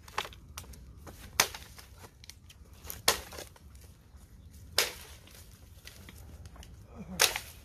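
Chopping with a blade while cutting down an illegal bird net and its bamboo poles: about five sharp chops at irregular spacing, every one to two and a half seconds.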